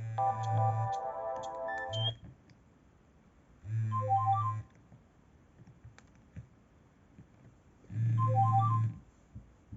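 Nokia E65 mobile phone playing ringtones through its speaker: a melody of held notes ends about two seconds in. Then a short run of high notes sounds twice, about four seconds apart. The run comes with a low buzz lasting about a second, the phone's vibration alert, which also sounds at the very start.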